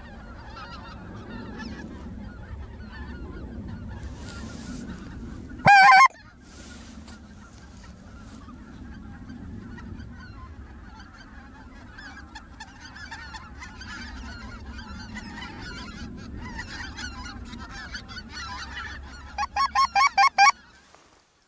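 A flock of wild geese honking steadily overhead. One loud, close goose honk about six seconds in, and a quick run of about six loud honks near the end.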